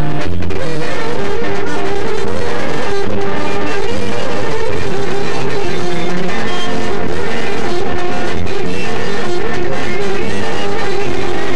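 Loud instrumental music with a wavering melody line over changing bass notes.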